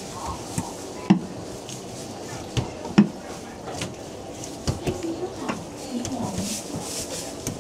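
Busy food market stall: a hubbub of background voices with scattered sharp knocks and clatter of dishes and utensils, the loudest knock about three seconds in.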